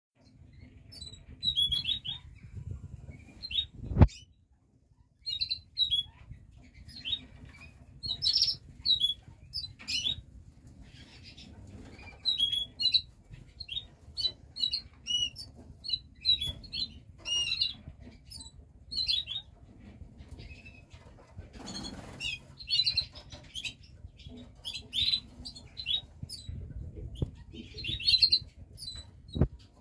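Canaries chirping in short, repeated calls while bathing, with bursts of fluttering wings. A sharp loud knock about four seconds in is followed by a moment of silence, and there is a brief noisy flurry of fluttering near the middle.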